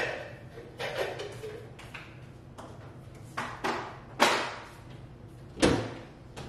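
Kitchen items and cabinetry knocking and clicking as a countertop is cleared and things are put away in lower cabinets: a string of separate knocks about a second apart, the loudest a thump near the end like a cabinet door shutting.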